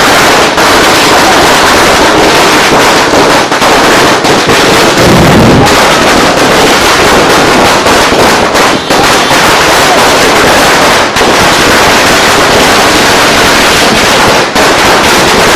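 Loud, continuous crackling noise with many sharp pops throughout, at the very top of the recording's range.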